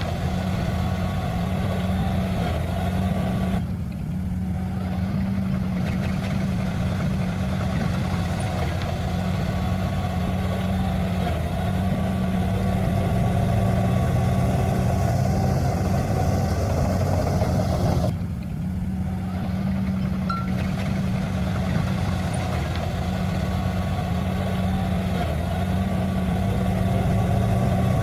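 Heavy diesel engine of earthmoving machinery running steadily, with a low even drone, dipping briefly twice.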